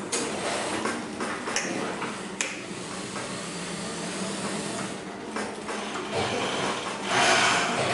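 JUKI industrial lockstitch sewing machine being worked as fabric is fed and stitched: a steady hum with a few sharp clicks early on, and a louder rush of noise about seven seconds in.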